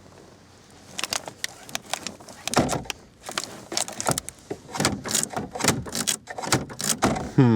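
Plastic glove box handle and latch of a Chevrolet Cavalier being pulled and worked over and over, giving irregular clicks and rattles while the broken latch fails to open. A short falling vocal sound comes at the very end.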